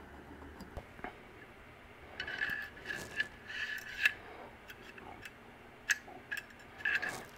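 Short scrapes and sharp clicks of metal parts being handled: an AR-15 barreled upper receiver turned and checked in the hands, with a squeaky scraping ring in two clusters, about two seconds in and again near the end.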